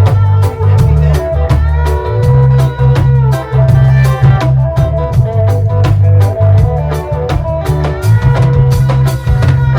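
Reggae band playing a lovers rock song: a deep bass line, a drum kit with regular rimshot and cymbal hits, and guitar.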